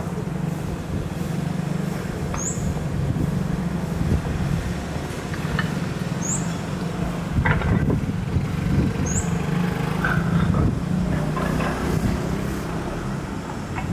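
Street traffic: cars driving past, over a steady low engine hum, with a short high chirp every three to four seconds.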